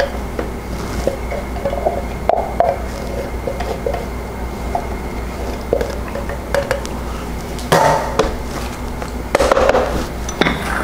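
Silicone spatula scraping diced tomatoes out of a metal can, with small scrapes and clinks of the can and spatula against the food processor bowl. A few louder knocks come near the end.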